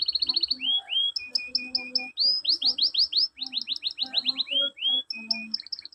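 Domestic canary singing a fast, varied song: rolls of rapidly repeated chirps and upward-sweeping notes, changing to a new phrase every second or so.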